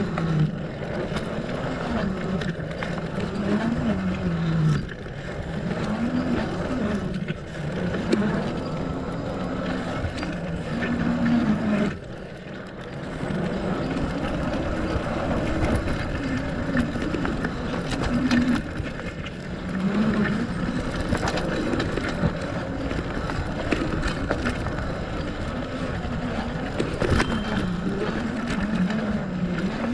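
Fat bike rolling over a packed-dirt forest trail: a steady rolling rush with a low hum that wavers up and down in pitch, and frequent small knocks and rattles from bumps. The rush drops off briefly about twelve seconds in.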